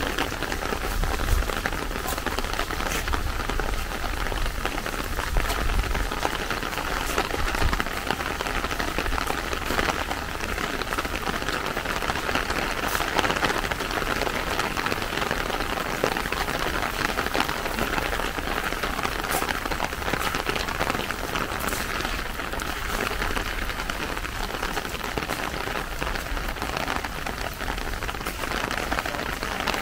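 Steady rain falling: an even hiss with scattered drops ticking close by.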